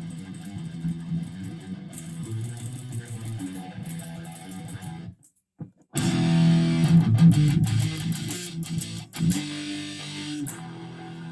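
First Act ME 506 electric guitar, tuned to E standard, playing riffs and power chords. The playing stops for under a second about five seconds in, resumes louder, and ends on a held chord.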